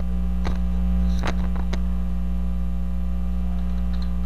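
Steady electrical mains hum throughout, with a few faint clicks of computer keys being typed in the first two seconds.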